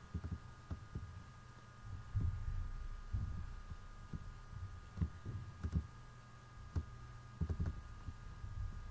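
Soft, irregular knocks and clicks from a computer mouse being clicked to scroll, a dozen or so in all, over a steady hum from the recording setup.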